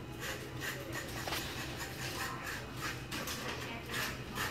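Knife scraping and slicing along a flounder on a cutting board, soft rasping strokes about two or three a second.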